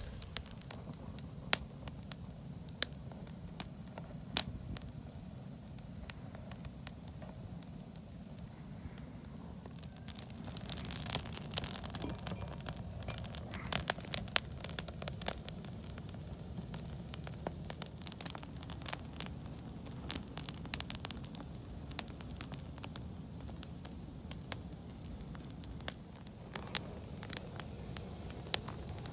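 Open wood fire of olive branches crackling, with many sharp pops and snaps over a steady low rush. The crackling thickens for a couple of seconds about ten seconds in.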